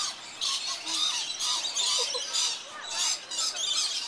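Rainbow lorikeets screeching: short, harsh calls repeating two or three times a second.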